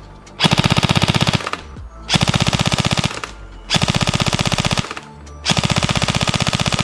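Evolution Airsoft Reaper XS electric airsoft gun (AEG) on an 11.1 V LiPo firing on full auto in four bursts of about a second each. Each burst is a rapid, even rattle of the gearbox cycling and shooting BBs, and the last burst is still running at the end.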